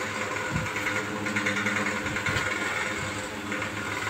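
Steady mechanical hum of a running motor, with a few soft knocks.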